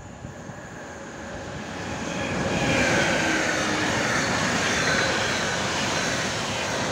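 Class 386 Siemens Vectron electric locomotive passing at speed with an intermodal freight train. The sound swells over the first three seconds as the locomotive comes by, with a faint falling whine, then the steady noise of the wagons' wheels running on the rails.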